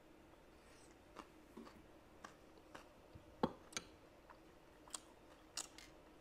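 A person chewing food with the mouth closed: about ten faint, separate wet mouth clicks spread through, the loudest about three and a half seconds in, over a faint steady hum.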